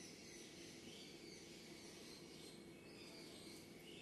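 Near silence: faint room tone with a low steady hum and a few faint, high chirps like distant birds.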